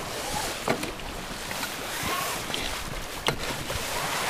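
C&C 39 sailboat under way: water rushing along the hull and wind on the microphone as a steady noise, with two sharp knocks, one near the start and one about three seconds in.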